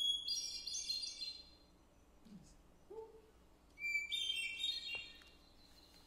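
Hermit thrush song played back from a recording. There are two phrases, one at the start and one about four seconds in, the second pitched lower. Each opens with a clear held whistle and runs into a quick, fluty cascade of higher notes.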